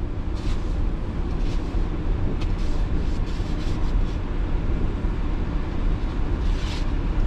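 Blizzard wind buffeting a campervan: a loud, steady low rumble, with short hisses now and then.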